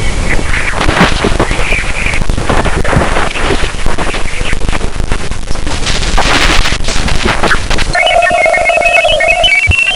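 Sonified radio-wave recording from the Galileo probe near Jupiter's moon Ganymede: dense crackling static full of short bursts. About eight seconds in it gives way to a steady tone with a string of rising beeps.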